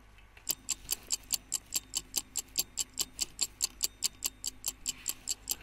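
Ticking clock sound effect, about five even ticks a second, playing as a countdown timer that marks thinking time for the students.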